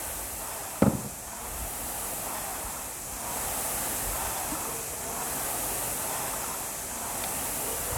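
Air-resistance fan flywheel of a chain-driven cardio machine whooshing steadily under hard effort, swelling and easing with each stroke. A single short knock about a second in.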